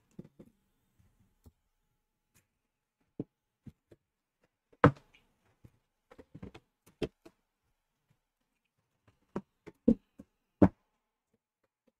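Shrink-wrapped metal trading-card tins being lifted out of a case and set down by hand: scattered knocks and taps, about a dozen, the loudest about five seconds in.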